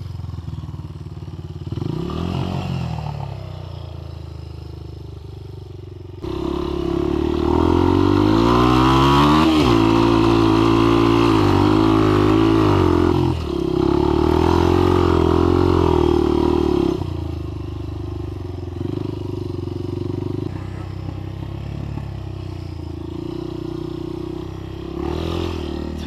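Honda dirt bike engine running: low and fairly even for the first six seconds, then suddenly revved hard with its pitch rising and falling again and again as it pulls through sand, then settling to a steadier, quieter run for the last third.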